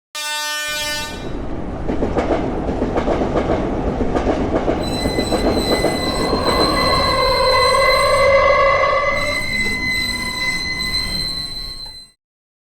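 A train running on rails with a dense clattering rumble, joined from about five seconds in by a steady high-pitched wheel squeal and, in the middle, a wavering horn-like tone. It opens with a short pitched tone and cuts off suddenly about twelve seconds in.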